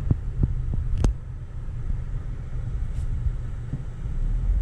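Car cabin road noise: a low rumble from the moving car, with a few light knocks or rattles in the first second. The rumble eases after about a second and swells again near the end.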